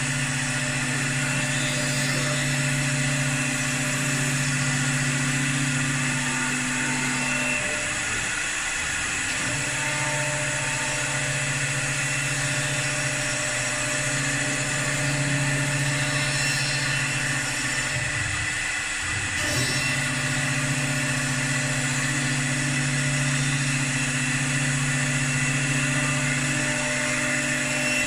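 CNC wood lathe with a 3.5 kW air-cooled slotting spindle cutting slots along a turned wooden spindle: a steady machine hum with a high whine. The deeper hum drops out briefly twice, about a third and two-thirds of the way through.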